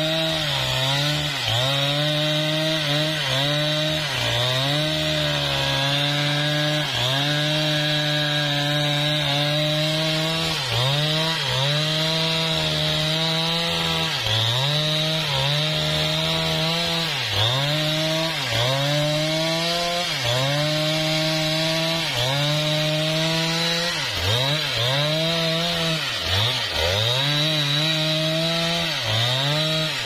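Husqvarna 395XP two-stroke chainsaw running at high revs under load, its chain cutting through a teak trunk. Its pitch dips briefly and recovers over and over, more often in the second half, as the chain bogs in the wood.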